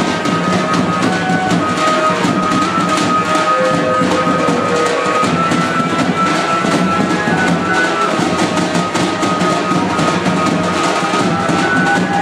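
Procession band music: large drums beating a fast, dense rhythm, with a high melody line of held notes playing over them.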